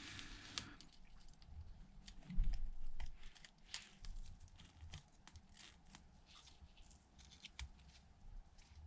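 Faint small clicks, ticks and rustles of tiny phone parts and hand tools being handled during a repair, with a louder dull bump about two and a half seconds in.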